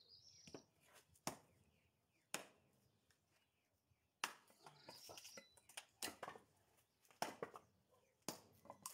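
Short axe chopping and splitting firewood on a stump chopping block: about eight sharp wooden chops at irregular intervals.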